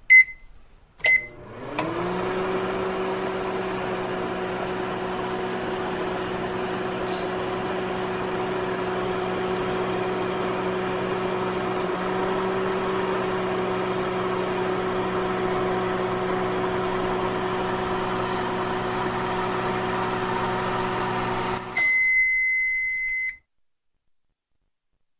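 Microwave oven started from its keypad: two short beeps and a click, then its hum and fan come up and run steadily for about twenty seconds. The running stops and a single long beep of about a second and a half follows, the end-of-cycle signal.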